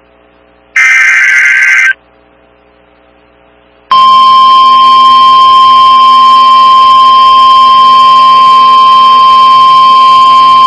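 NOAA Weather Radio emergency alert signalling: a loud, buzzy one-second burst of SAME digital header data ends early, then after a two-second gap the steady 1050 Hz warning alarm tone starts about four seconds in and holds. The alarm tone announces that a new warning message follows.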